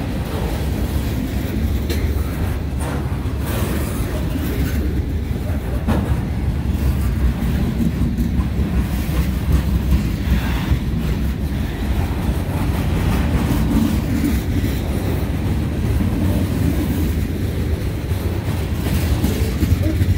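Freight cars of a CSX train rolling past: a steady low rumble of steel wheels on the rails, with scattered clicks and clacks from the wheels and cars.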